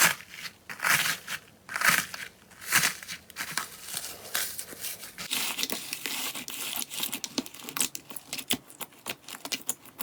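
Slime being pressed and worked by hand, crackling and popping: separate squishes about once a second at first, then a dense run of quick crackles and pops from about halfway.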